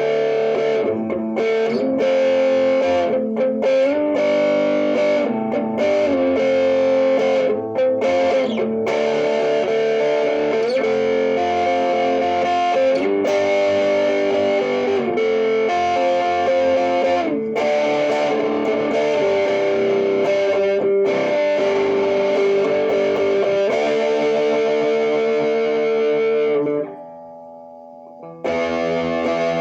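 Electric guitar played through a one-knob fuzz pedal set about halfway, strumming distorted, sustained chords into an amp in a D, F, G progression. The chords change every second or two, with a brief break near the end before the playing comes back in.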